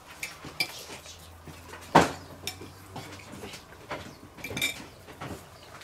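Cutlery clinking and scraping on plates as people eat, in scattered short clicks, with one sharper clink about two seconds in.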